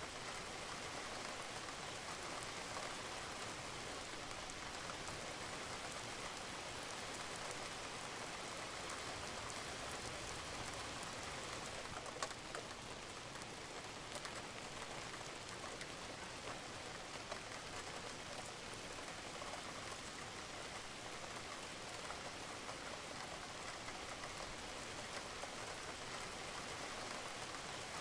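Steady rain falling on a roof, an even patter with scattered drops and a sharper drip about twelve seconds in.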